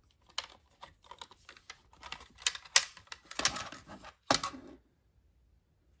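Light plastic clicks and taps, then a few louder knocks as a robot vacuum's dustbin is handled and slid back into its compartment; the sounds stop about three-quarters of the way through.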